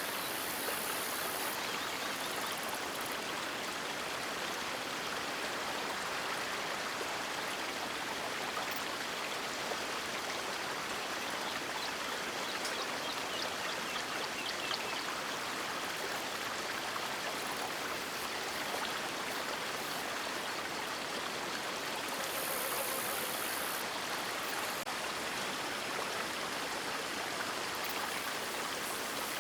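River water flowing, a steady rushing sound with no change in level.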